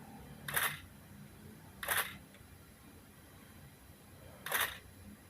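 Nikon D80 DSLR shutter firing three times: test shots, the second about a second and a half after the first and the third about two and a half seconds later.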